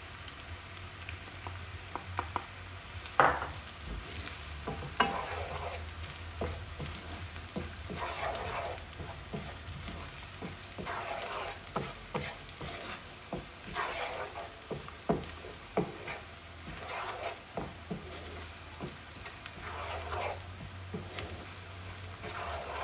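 Softened onions and freshly added ground spices frying in oil in a non-stick frying pan, sizzling steadily while a wooden spatula stirs and scrapes through them, with a stroke every second or so and a couple of louder knocks of the spatula on the pan early in the stirring.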